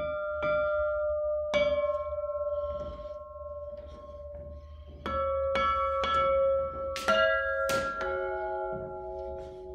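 Bells struck one after another with a small hammer, each strike ringing on in a clear tone that lasts for seconds. Different bells give different pitches: two strikes early on, then after a pause a quicker run of strikes.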